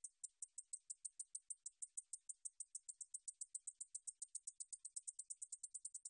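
Song of a Ducetia japonica bush katydid: a run of short, high, dry ticks, about five a second at first and quickening toward the end.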